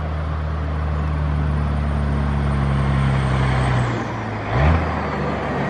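Road traffic on the overpass: a motor vehicle's engine runs with a steady low hum under a broad hiss of road noise. About four and a half seconds in, the engine note rises briefly.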